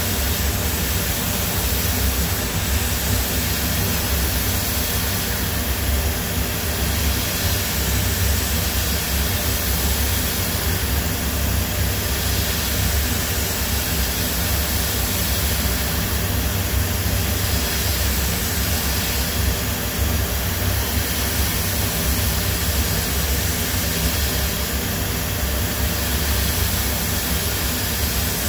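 Hwacheon G1 graphite machining centre running, its high-speed direct-drive spindle turning a small end mill through a graphite workpiece. It makes a steady, even noise over a strong low rumble, unchanging throughout.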